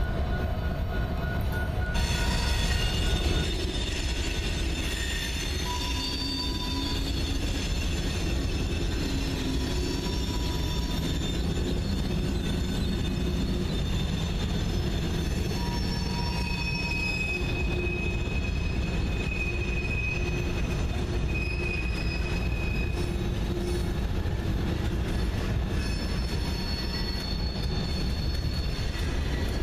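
Union Pacific diesel locomotives rolling slowly past around a curve, with a steady low engine rumble and wheel flange squeal that comes and goes in high thin tones.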